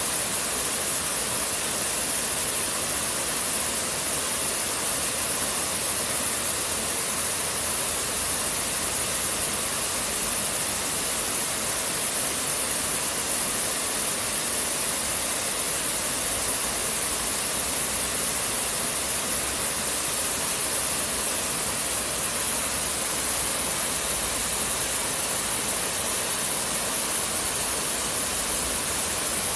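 Steady, unchanging noise with a constant high-pitched shrill over it, and no separate sounds standing out.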